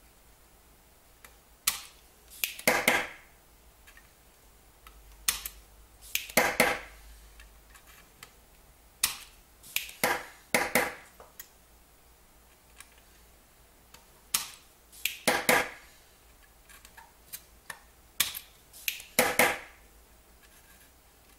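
Heated, spring-loaded desoldering iron (solder sucker) being pressed onto IC pins and fired: a series of loud, sharp snapping clicks, some in quick pairs, every second or two as the plunger cocks and releases to suck molten solder.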